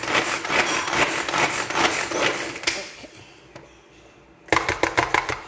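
Manual pull-cord food chopper worked with repeated quick pulls, its blades rattling through onion, tomato and chilli in the plastic bowl as the salsa is chopped fine; the rattle stops about three seconds in. Near the end comes a short run of quick sharp clicks.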